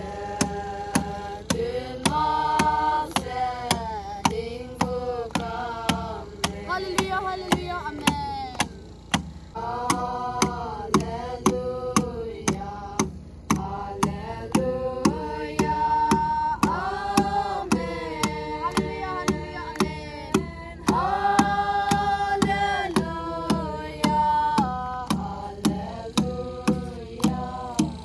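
A song: a singing voice holding long, sliding notes over a steady beat of about two sharp clicks a second.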